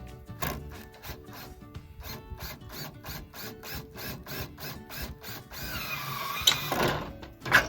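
Background music with a steady beat. Near the end comes a short stretch of tool noise, about a second and a half long, with a wavering whine and two sharp knocks.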